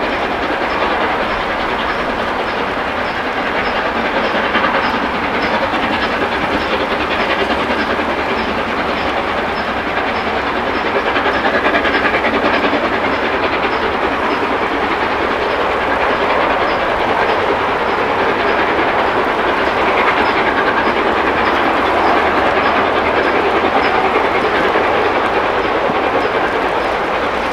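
Steam locomotive 60163 Tornado, a three-cylinder Peppercorn A1 Pacific, working hard up a steep climb with a passenger train: a steady, unbroken roar of exhaust and train noise.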